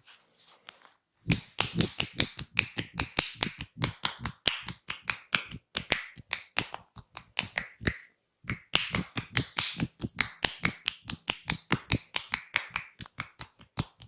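Fast percussive hand strokes of a massage, sharp slaps at about four or five a second, in two long runs broken by a short pause just past halfway.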